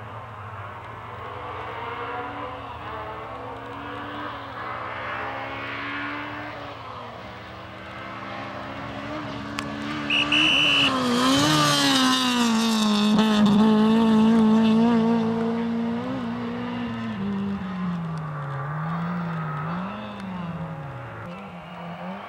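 Honda Civic hatchback rally car driven flat out, approaching and passing close by, its engine revs climbing and dropping at each gear change. It is loudest about halfway through, as it goes past, then fades with the revs rising and falling.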